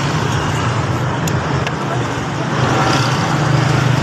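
Motorcycle engine idling steadily after a new CDI and spark plug were fitted to cure hard starting, a little louder after about three seconds.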